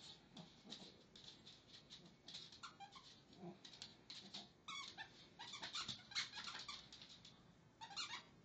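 A dog's squeaky toy being squeaked over and over by the dog: short, high squeaks in quick, irregular runs, busiest a little past halfway through and again near the end.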